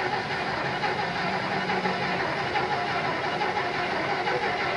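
Tractor-pulling engine running steadily, heard close to its open compressor intake as an even, dense rush of noise, with a faint low hum that stops about two seconds in.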